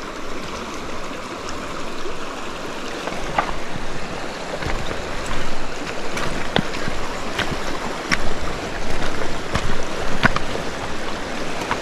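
River current rushing steadily, with scattered small sharp ticks or splashes at uneven intervals through the second half.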